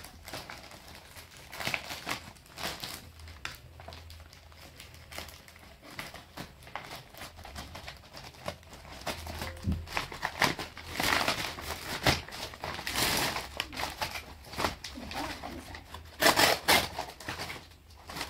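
Plastic and paper packaging of a parcel crinkling and rustling as it is handled and opened, in irregular bursts, louder near the middle and again near the end.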